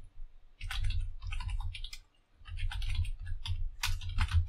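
Typing on a computer keyboard: quick runs of key clicks in two bursts, with a short pause about two seconds in.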